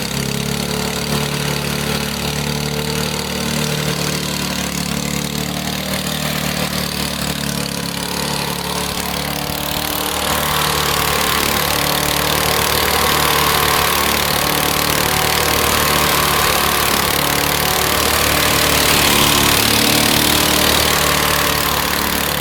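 Briggs and Stratton single-cylinder lawn mower engine running steadily, getting louder and harsher about ten seconds in. Its governor is broken, so the engine speed is not regulated, which the owner takes as a risk of a broken connecting rod.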